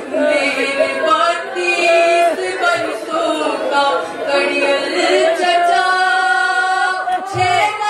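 A woman singing an Urdu nauha, a Muharram lament for Abbas, solo into a microphone with no instruments, drawing out long wavering notes; the longest is held near the end.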